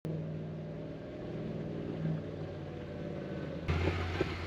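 Vehicle engine running steadily at a low idle; about three and a half seconds in, the sound switches abruptly to a louder, rougher engine rumble.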